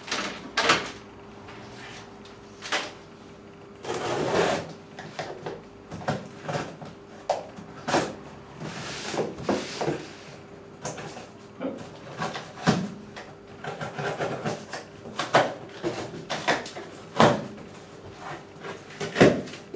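A taped cardboard shipping box being cut open with scissors: irregular snips, scrapes and knocks of the blades against tape and cardboard, with the flaps rustling as they are pulled back.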